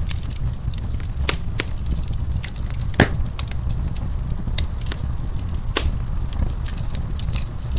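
Wood fire crackling in a fireplace: a steady low rumble of burning with scattered sharp pops and snaps, the loudest about three seconds in.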